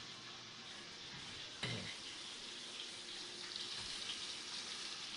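Chicken frying in hot oil in a pan: a steady sizzle with fine crackling, and one short knock about a second and a half in.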